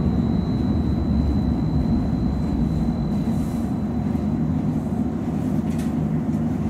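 A 2015 Inekon 121 Trio streetcar running on its rails, heard from inside the car as a steady low rumble. A thin high whine over the rumble fades out about halfway through.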